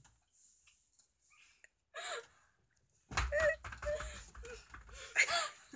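After a near-silent start, a girl lets out wordless, strained whimpering and giggling sounds from about three seconds in. A low rumble of the phone being handled runs under them.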